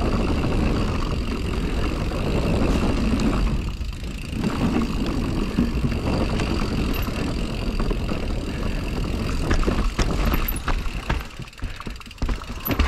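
Mountain bike rolling fast over a rough trail: a steady rumble of tyres and wind noise, with a few sharp knocks about ten seconds in.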